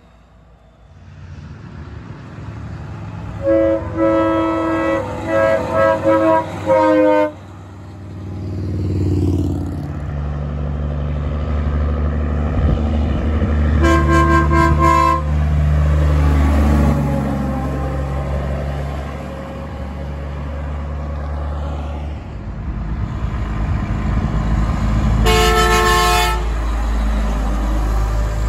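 Semi-truck air horns sounding as the trucks pull away, each a chord of several tones. A Kenworth K100C gives a string of about five blasts, a Peterbilt 379 gives one blast on a horn captioned as fouled, and near the end a Freightliner CL120 gives one blast on a Hadley H00640R air horn. The trucks' diesel engines run steadily under and between the blasts.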